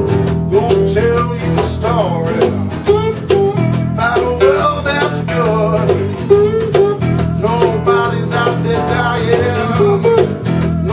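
Live acoustic blues played on a resonator guitar and an acoustic guitar together, with steady low notes under bending melody notes.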